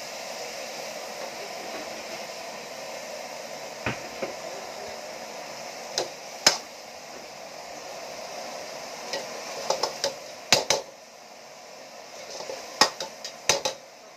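Beef sizzling as it is stir-fried in a metal wok, with a metal ladle scraping and clanking against the wok: a few single clinks about four and six seconds in, then quicker runs of clanks in the last few seconds.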